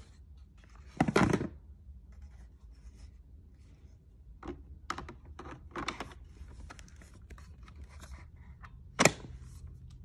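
Plastic handling sounds: scattered knocks, scrapes and rustles while a Greenworks battery is fitted to the stick vacuum's handle, ending in one sharp click about nine seconds in as the battery latches into place.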